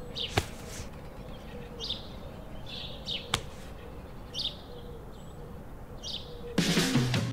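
A broom making short swishing strokes, about five of them at irregular intervals, with two sharp clicks among them. Music comes in near the end.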